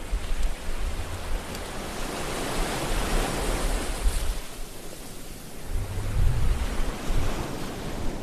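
Steady rushing of surf and wind, swelling about three seconds in, with low rumbling buffets of wind on the microphone at the start and again about six seconds in.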